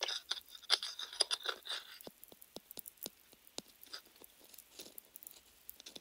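Close-miked bristles of a paintbrush rubbed and flicked with the fingers, a dense crisp crackle for about two seconds. It then thins to scattered sharp ticks, a few a second.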